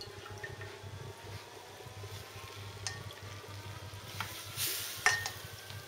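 Pastry brush dabbing and spreading sugar syrup over a freshly baked semolina cake in a metal tray: faint soft wet brushing with a few light clicks, over a low steady hum.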